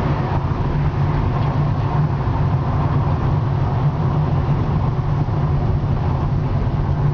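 Car driving along a town street: steady engine and road noise with a low, even hum.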